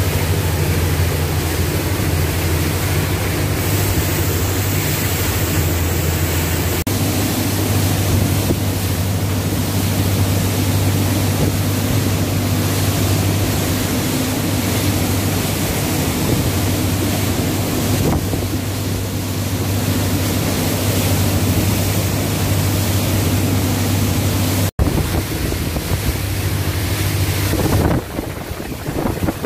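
Motorboat engine running steadily at cruising speed, a low even hum under the rush of water along the hull and wind buffeting the microphone. Near the end the sound cuts out for an instant, and then the engine hum drops away, leaving mostly wind and water.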